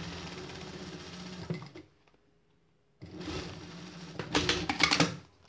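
Siruba industrial sewing machine stitching fabric along a foam bikini cup, running in two spells of about two seconds each with a one-second pause between; the second spell is louder near its end.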